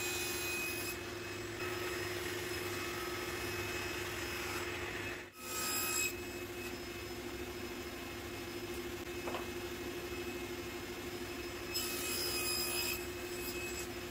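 Table saw running steadily, cutting 15 mm Baltic birch plywood to size, its motor drone steady throughout. The sound breaks off briefly about five seconds in.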